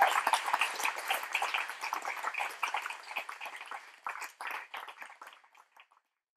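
Small audience applauding, the clapping fading and thinning to a few scattered claps before it cuts off suddenly near the end.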